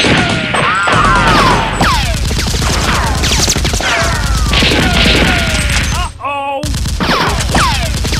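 Dubbed-in gunfire sound effects: rapid bursts of automatic shots with repeated falling ricochet whines, broken by a brief lull around six seconds.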